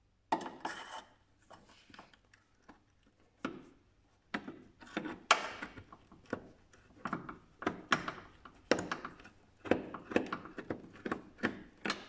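Screwdriver knocking and scraping against a BMW E46's sheet-metal bracket as it is worked in the slot that releases the front turn-signal lamp's retaining clip: an irregular series of clicks, knocks and short scrapes.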